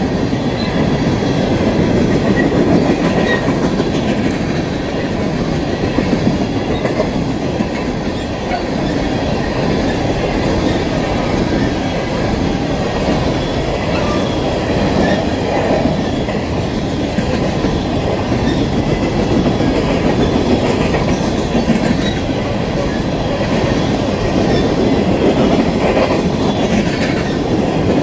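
Freight train cars rolling steadily past a grade crossing: a continuous rumble of wheels on rail with clickety-clack over the joints.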